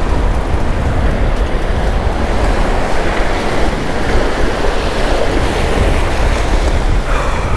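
Surf breaking and washing against the rocks of a jetty, under strong wind buffeting the microphone: a steady, loud rush with a heavy low rumble.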